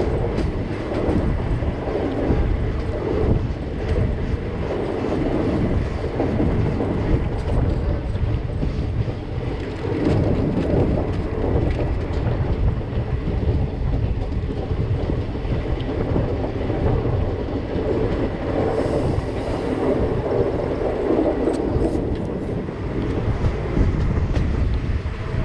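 Passenger train running at speed, heard from an open coach door: a steady rumble of the coach wheels on the rails.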